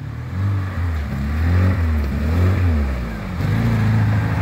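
Lada Niva 4x4's engine revving up and down several times as it drives over a rough dirt track, then pulling steadily and louder from about three and a half seconds in.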